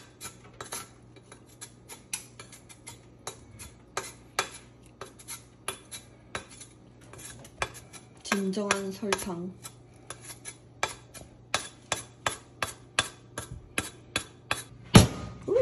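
Knife blade scraping and shaving the rind off a sugarcane stalk in quick repeated strokes, about three a second, with a few louder strokes near the end.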